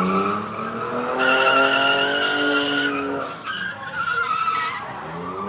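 BMW E46 3 Series drift car sliding under power: the engine is held high while the rear tyres squeal steadily. The squeal cuts off about three seconds in, and the engine and tyre noise then go on more unevenly, with the revs rising again near the end.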